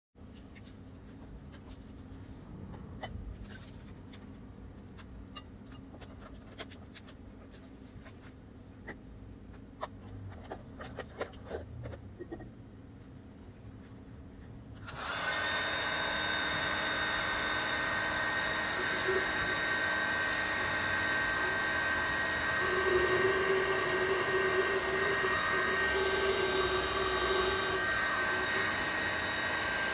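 Scattered light clicks and knocks of glass jars and a lid being handled. About halfway in, a hot-air blower with a glowing heating element switches on and runs steadily, its fan giving a loud, even rushing noise with a faint whine.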